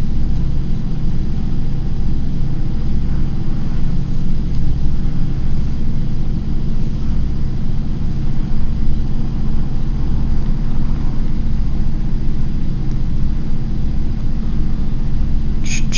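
A steady, loud low rumble with a faint hum running through it.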